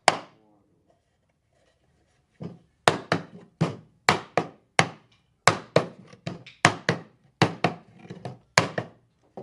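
About two seconds of quiet, then a steady run of sharp hammer blows on wood, two or three a second, tapping the joints of a hand-made hexagonal wooden box home during assembly.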